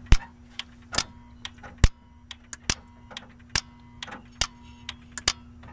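Rapid, irregular electrical ticking, about three clicks a second, from a small component in the diesel Silverado's glow plug circuit and its leads. The owner takes it as a sign that something keeps resetting in the circuit. A faint steady hum sits underneath.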